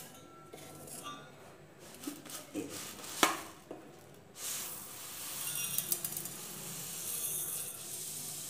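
Steel bowls and plates clinking and scraping together, with one sharp clink about three seconds in. From about halfway, dry idli rice pours and slides off a steel plate into a steel bowl with a steady grainy hiss.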